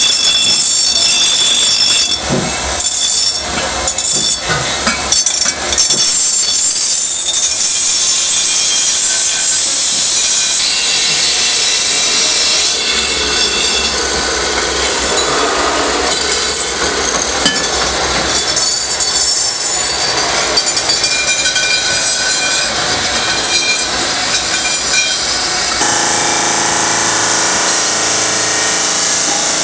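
Workshop machine noise: a motor-driven polishing wheel grinding against metal pressure-cooker parts, with the sound shifting a few times as the work changes. About halfway through, a drill boring into a metal disc is heard, and near the end the polishing wheel runs against a pot again. The first few seconds are rough and uneven, then settle into a steady hiss.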